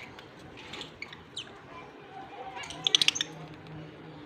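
Lovebirds chirping: a few short high chirps in the first second and a half, one sweeping downward, then a quick run of about five sharp, louder chirps around three seconds in.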